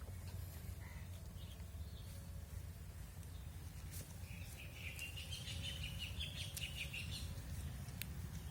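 A bird calling in a rapid chattering run of high notes lasting about three seconds, starting about halfway through, over a steady low rumble.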